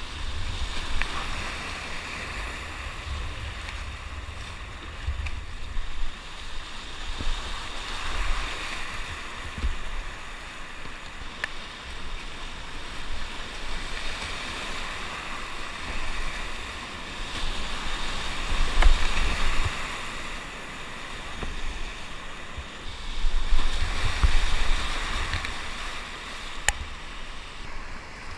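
Whitewater rapids rushing and churning over boulders, heard close from a kayak at water level, swelling louder several times, with bursts of low rumble underneath.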